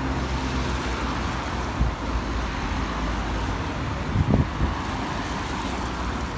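Road traffic: cars driving past with a steady rumble of engine and tyre noise, and a couple of louder low bumps about four seconds in.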